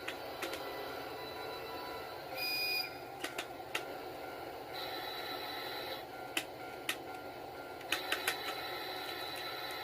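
HO-gauge DF200 model train running on the layout's track, a steady mechanical running noise with irregular sharp clicks. A short, loud high electronic tone comes about two and a half seconds in. A steady high electronic tone sounds about five seconds in and again from about eight seconds on: the automatic level crossing's warning sounding as the train passes its sensor.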